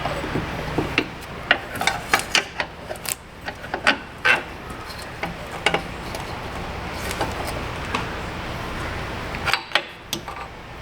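Scattered metallic clicks and clinks of hand tools and parts as the AC compressor's line fittings and bracket are worked into place, over a steady low hum.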